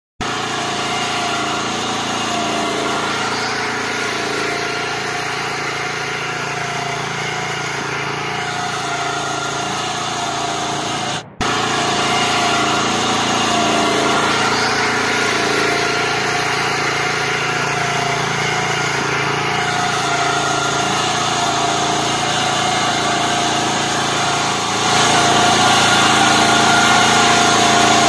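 Engine of a Kummucit KM840/14 sickle-bar meadow mower running steadily as it cuts tall grass. The sound breaks off for a moment a little over a third of the way in, then resumes, and it grows louder near the end.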